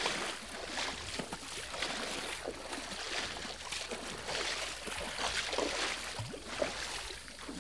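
Two people wading through a shin-deep river, their legs splashing and sloshing through the water in a steady, uneven run of strides.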